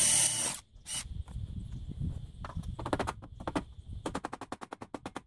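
A cordless drill running briefly and stopping, then a series of sharp taps, scattered at first and quickening into a fast run near the end: a hammer and drift knocking the tread plate out of an aluminium sliding door frame.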